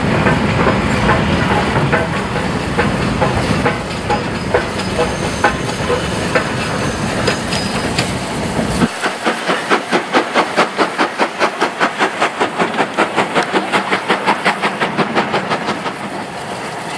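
Steam-hauled goods train on the move: a heavy rumble with scattered clicks, then a fast, even rhythm of sharp beats, about four a second, that fades near the end.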